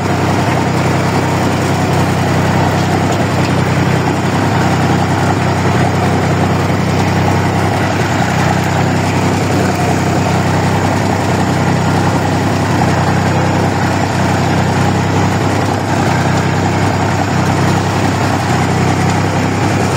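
Old diesel farm tractor engine running steadily as the tractor is driven slowly along a dirt track, heard from the driver's seat, with no change in engine speed.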